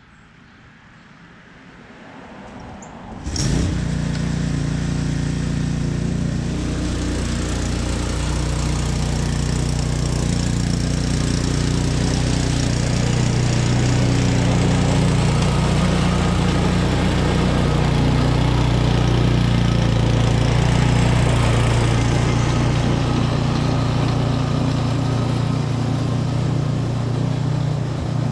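Toro TimeMaster 30-inch walk-behind mower's engine starting about three seconds in and then running steadily, with the blades disengaged.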